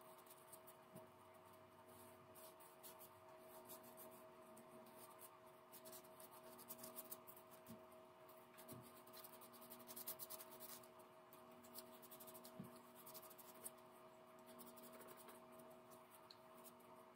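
Near silence: a faint steady hum under quiet small clicks and rubbing from the drill's motor and brush card being handled and fitted together, busiest around the middle.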